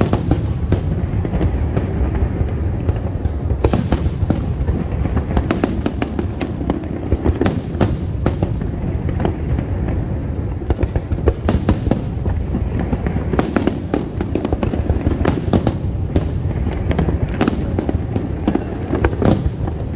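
Aerial fireworks display: a continuous barrage of shell bursts, with many sharp bangs coming in quick runs over a constant low rumble.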